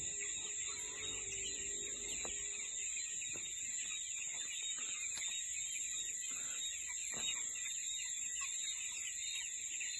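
Chorus of night insects, crickets, in rural Jamaica: a steady high-pitched trill over a denser, rapidly pulsing chirring.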